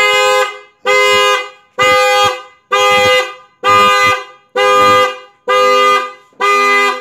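Yamaha Mio Soul i 125 scooter's horn honking in a steady series of short blasts, about one a second, eight in all. It is the GPS tracker's anti-theft alarm, set off by a remote text-message shutdown command, sounding the horn along with the hazard lights.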